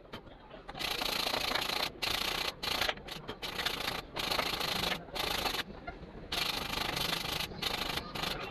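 Wooden blocks rubbed by hand on sandpaper to smooth their rough sides: a scratchy rasping in repeated strokes of about half a second to a second each, with short breaks between.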